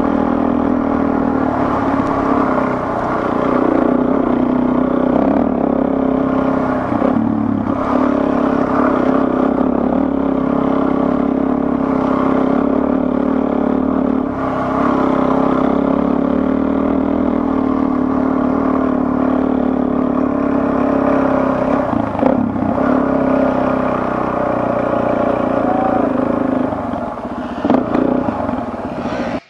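Dual-sport motorcycle engine running at a steady road pace on a gravel forest track, heard from the rider's seat, its pitch easing and picking up a little now and then. A few short knocks come through, one near the end.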